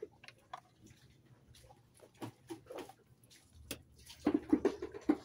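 Light clicks and knocks of hands and a tool working on a Yamaha 40 hp outboard motor's bracket while a fitting is fastened. The knocks grow busier and louder about four seconds in.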